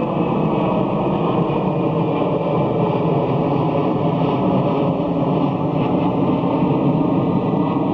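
Boeing C-17 Globemaster III's four turbofan engines running with a steady, continuous jet noise.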